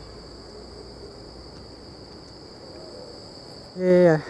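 Night insects, crickets, trilling in one steady, high, unbroken chorus. Near the end a man's voice briefly cuts in over it with a single drawn-out word.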